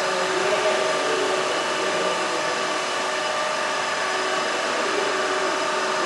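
Steady mechanical whirring hum of the Cairngorm funicular railway, with several steady tones over an even rushing noise and no knocks or breaks.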